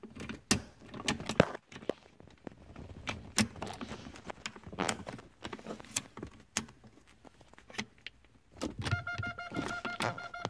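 Screwdriver and fingers clicking, scraping and knocking irregularly against the plastic trim and metal of a car's automatic gear selector while the neutral switch is worked on. Near the end, a steady electronic tone starts and keeps going.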